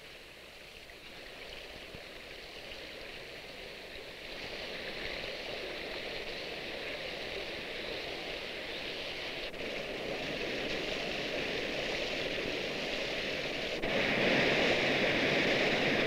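Rushing water tumbling over rocks, a steady noisy rush that swells gradually, then jumps louder about two seconds before the end into the heavier rush of a tall waterfall.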